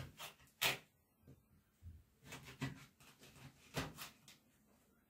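Kitchen knife cutting a flounder in half on a wooden cutting board: faint scraping and handling, with a few sharp knocks of the blade against the board, the loudest about two-thirds of a second in and again near four seconds in.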